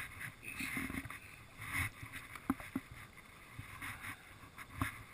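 Small splashes and water sloshing beside an inflatable fishing boat, with scattered light knocks and clicks of gear against the boat's frame.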